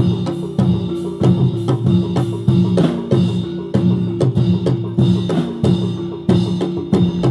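Live Reog accompaniment: a drum kit and drums beating a steady, driving rhythm over a sustained held note.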